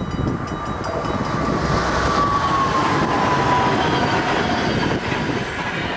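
NS ICMm electric intercity train passing at speed over the level crossing: a loud rush of wheels on rail that builds, holds and eases off, with a whine that drops in pitch as it goes by. The crossing's warning bells ring at the start and are soon drowned out.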